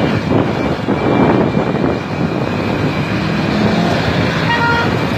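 Traffic noise heard from a moving motorcycle: engine running with road and wind noise, and a short horn toot near the end.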